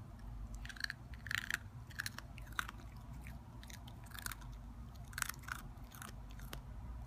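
A 12-week-old miniature Australian Shepherd puppy chewing a dry Cheerio, making crisp crunches in two quick runs with a short pause between.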